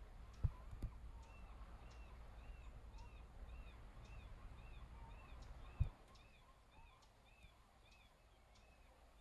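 Faint outdoor ambience with a bird calling over and over in short arched chirps, about two a second. A few low thumps come near the start and again about six seconds in.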